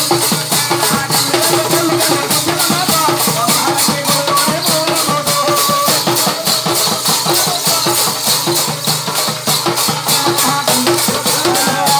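Live folk percussion music: a fast, steady rattling and drum beat of about four strokes a second, with a wavering melody line over it.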